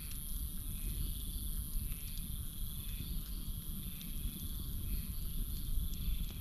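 Campfire crackling, with scattered sharp pops over a low steady rumble of burning wood, against a constant high chirring of crickets and a pulsing chorus of night insects and frogs.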